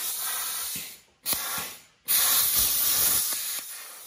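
Plasma cutter cutting through a steel tube: a loud, steady hiss of air and arc, broken off briefly twice, about a second and two seconds in, and easing off near the end.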